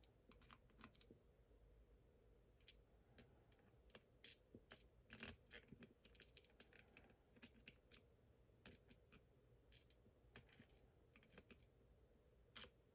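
Faint, irregular clicking and ticking of a lock pick and tension wrench working the pins of a pin-tumbler lock fitted with security spool pins, a few slightly louder clicks about four to five seconds in.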